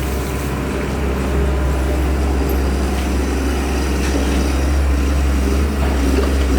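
Heavy diesel engine of a LiuGong excavator running steadily with a deep, even drone.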